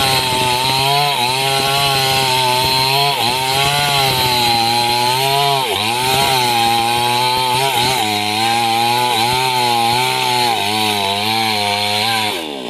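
Small two-stroke chainsaw at full throttle ripping along timber, its engine pitch sagging under the load of the cut and recovering every two to three seconds. Near the end the engine drops back.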